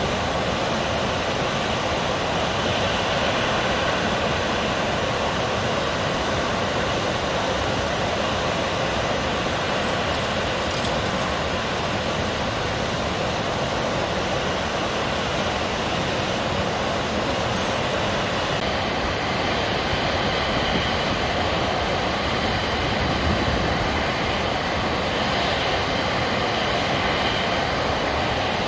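Water from Naruko Dam's sudare (bamboo-blind) release pouring over the dam crest in thin curtains and crashing onto the rocks below: a steady rushing roar that does not change.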